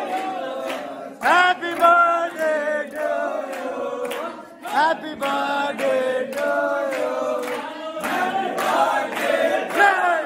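A group of young men singing together, clapping their hands to a steady beat.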